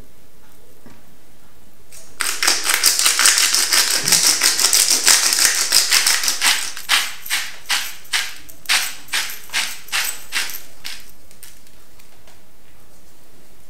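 A hand-turned spice grinder being twisted over the fish. It gives a fast run of crunchy grinding clicks for a few seconds, then separate crunches about two a second that slow and stop.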